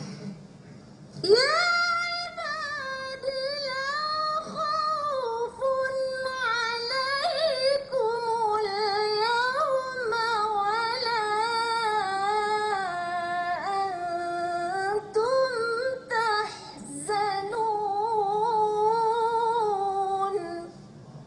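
A woman reciting the Quran in the melodic, ornamented tilawah style, one voice drawing out long wavering phrases through a microphone. She begins about a second in, pauses briefly for breath a few times, and stops just before the end.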